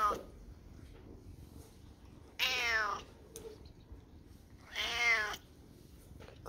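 Black domestic cat meowing: the end of one meow at the start, then two more about two and a half seconds apart, each falling in pitch.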